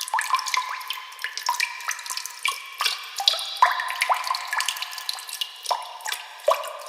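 Water drops plinking in a quick, irregular run, several drops a second, each a short pitched plink.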